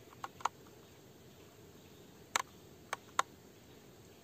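Screwdriver clicking on the terminal screws of a solar charge controller while a wire terminal is tightened: two light clicks about half a second in, then three sharper clicks between two and three and a half seconds in.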